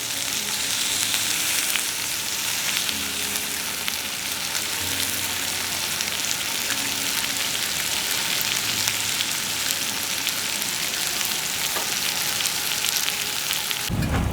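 Wood campfire burning with a steady hiss and small scattered crackles. The sound cuts abruptly to a louder, lower rumble in the last half-second.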